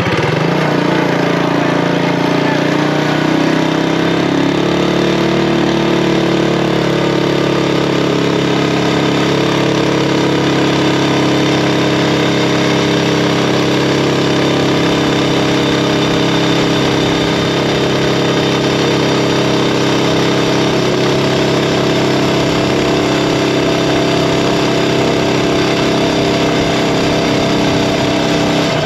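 Predator Ghost 212cc single-cylinder four-stroke engine on a mini bike running hard under way. Its pitch climbs over the first few seconds as it picks up revs, then holds steady at high revs.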